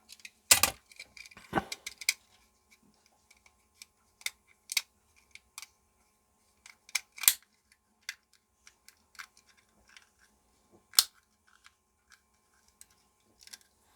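Scattered sharp clicks and snaps of a battery wall-clock movement being handled and its clip-fastened case opened, the loudest about half a second in, around seven seconds and about eleven seconds in.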